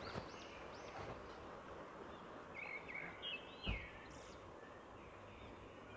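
Faint background hiss with birds chirping in short, arched notes, a few near the start and another cluster around the middle, and one soft low thump a little past halfway.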